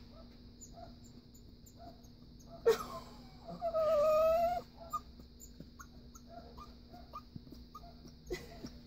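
Puppy giving one high, squeaky, dolphin-like whining cry about a second long, dipping slightly in pitch and rising at the end, just after a short sharp sound; begging for food.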